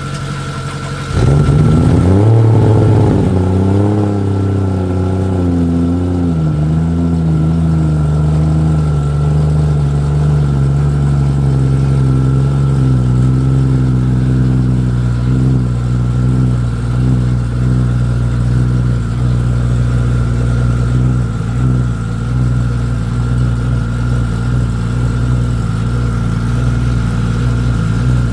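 A car engine starts about a second in, flares up in revs and then eases down over several seconds into a steady idle. A steady engine idle and a faint steady whine can be heard underneath it.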